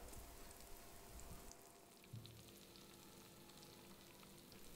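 Very faint sizzling of raclette cheese melting and bubbling in small pans under a raclette machine's heating element, with tiny scattered crackles.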